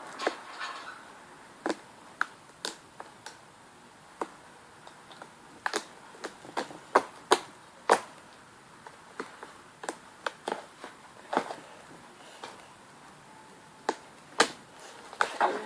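Homemade slime being squeezed and played with by hand, giving off irregular sharp clicks and pops.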